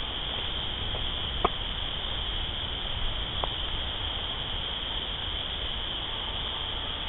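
A steady, high-pitched chorus of calling night animals, with two short clicks, about a second and a half in and again near the middle.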